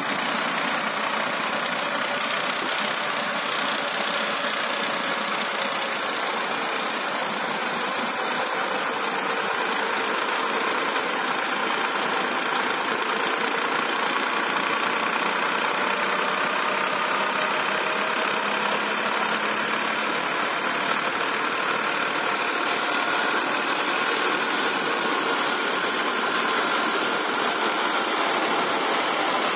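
A tractor-driven straw reaper at work, its cutting and threshing mechanism running together with the New Holland 5500 turbo tractor's engine under load: a steady, dense mechanical noise that does not change.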